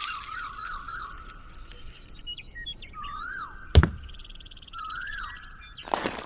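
Birds calling and chirping, with warbling and arched, repeated calls and a quick trill. A single sharp knock about four seconds in, and handling noise near the end.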